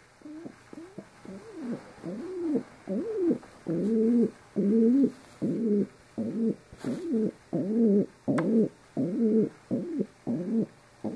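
Domestic pigeon cooing while being stroked: a fast run of short coos, each rising and falling in pitch, about two a second, growing louder toward the middle.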